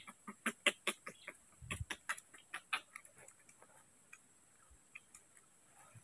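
Baby macaques sucking at milk bottles: quick, irregular wet clicks and smacks from the nipples, thick in the first three seconds and then sparser.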